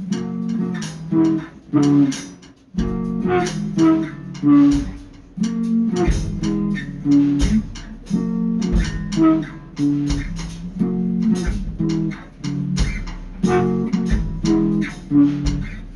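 Background music: guitar with a steady beat, a bass line coming in about three seconds in.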